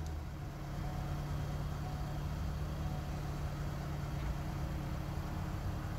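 2016 Ford Escape's engine idling steadily: a low, even hum.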